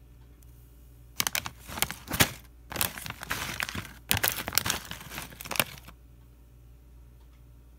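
Plastic potato-chip bag crinkling and crackling as it is handled and turned over in the hands, in loud bursts for about five seconds starting about a second in.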